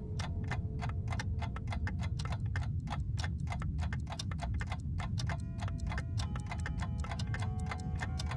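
Old film projector rattle: a steady, fast clicking, about six clicks a second, over a low rumble. Faint music comes in under it, clearer from about five seconds in.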